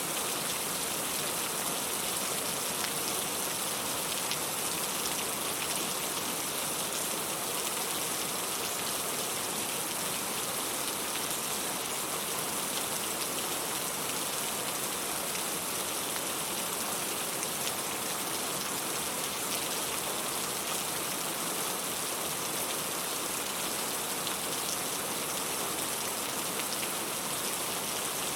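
Steady rain: an even, unbroken hiss with scattered faint ticks of drops.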